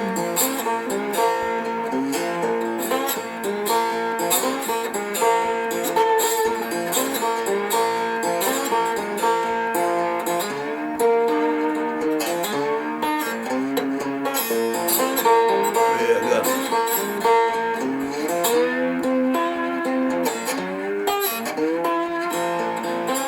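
Homemade three-string instrument with a 10-inch galvanized duct-cap body and PVC neck, picked up by a piezo and played through a small amp: an instrumental blues break of plucked notes, some of them sliding in pitch.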